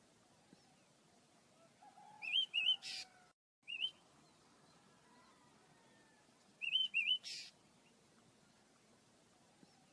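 Small pet birds chirping: quick pairs and threes of short, high, wavering chirps, each group followed by a brief hiss, about every four and a half seconds.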